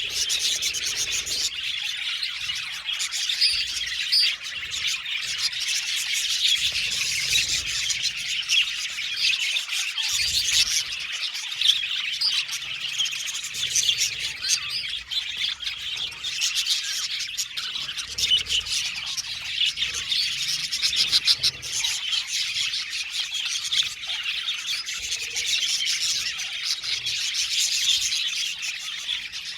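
A flock of budgerigars chirping and warbling together, many overlapping voices at once, with frequent sharp chirps and squawks.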